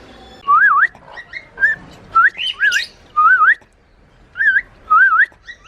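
Cockatiels giving about ten short, clear whistled calls in quick succession, each sliding up and down in pitch.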